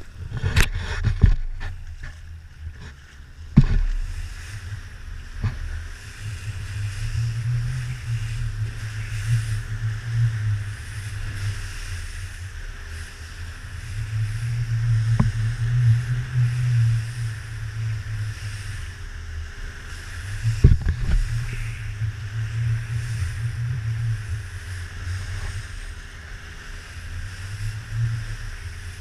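Outboard engine of a Joker Clubman 21 rigid inflatable boat running through big waves, its low drone swelling and easing in surges. Sharp thumps of the hull hitting the waves come several times in the first few seconds and again about halfway and two-thirds of the way through.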